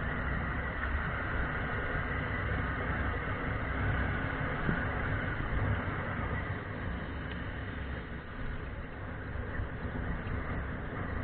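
Steady wind and road noise on a motorcycle-mounted camera while riding, with the motorcycle's engine running underneath as a low rumble.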